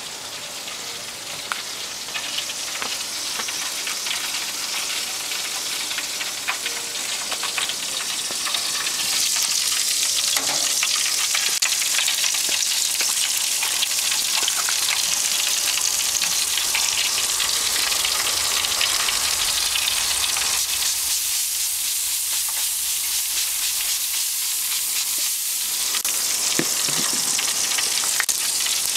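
Ribs sizzling on a grill grate over hardwood lump charcoal: a steady hiss full of small crackles, getting louder about nine seconds in.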